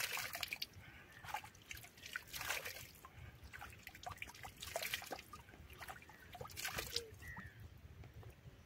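A hand scooping and splashing river water at the shallow edge, about four times roughly two seconds apart, with water dribbling back.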